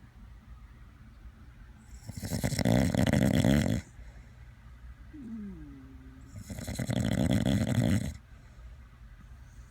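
A sleeping man and his dachshund snoring: two long, loud snores about four seconds apart, each under two seconds, with a brief squeaky, falling whistle between them.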